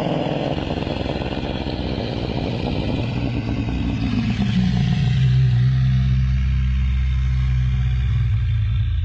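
Created Plateosaurus dinosaur vocalization: one long, low bellow that slides down in pitch about four seconds in, then holds a deep, steady tone.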